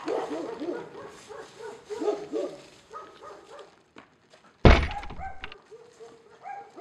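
A dog barking and whimpering in short repeated calls, with a single loud thud about two-thirds of the way through.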